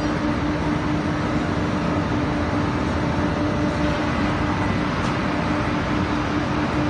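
Loose-fibre belt dryer running: a loud, steady machine noise with a constant low hum.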